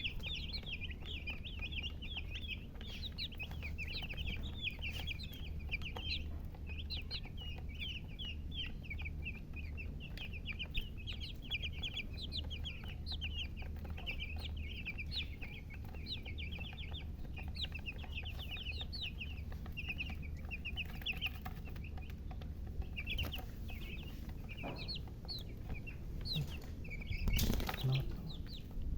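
Baby chicks peeping continuously: many short, high chirps overlapping, with a steady low hum underneath. A brief loud bump sounds near the end.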